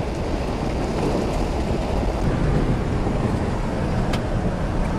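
Steady rush of wind and road noise from a car driving at speed, heard from inside the car.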